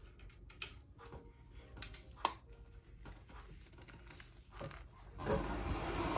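Ring light parts and packaging being handled: scattered small clicks and taps, with a sharper click a little past two seconds in. About five seconds in comes a louder rustling that lasts about a second.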